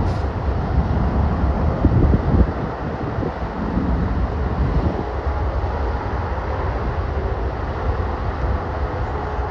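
Low, steady rumble of a departing jet airliner's engines, with wind buffeting the microphone.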